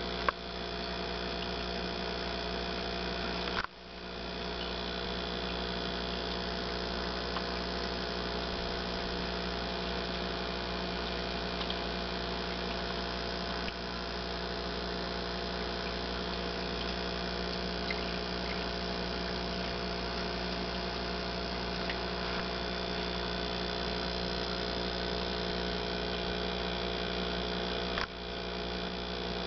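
Steady electrical hum made of several fixed tones over a constant hiss, dropping out briefly about four seconds in and again near the end.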